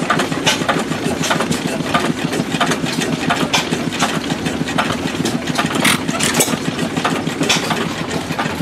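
Several antique stationary flywheel gas engines running at once: a steady low drone with a quick, irregular clatter of overlapping pops and clicks.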